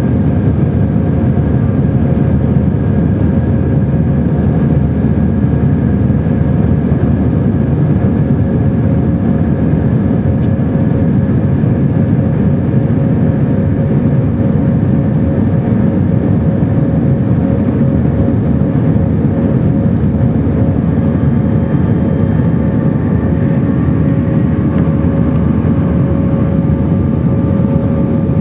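Airbus A319 cabin noise during the climb after takeoff: a loud, steady rush of jet engine and airflow with a few faint steady engine tones over it, one higher tone coming in about twenty seconds in.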